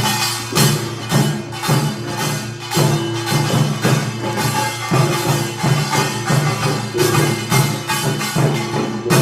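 Korean nongak (pungmul) percussion ensemble playing a steady driving rhythm: kkwaenggwari small gongs clanging over drums, with a gong ringing underneath.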